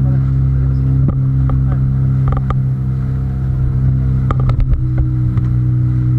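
Boat engine running steadily with an even, pitched hum, its note shifting slightly about five seconds in. A few sharp clicks and knocks sound over it, the most about two and a half and four and a half seconds in.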